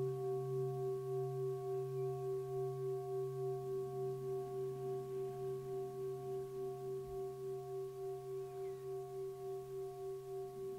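Singing bowl ringing with several steady overtones, its sound wavering in a quick pulse of about three to four beats a second as it slowly fades.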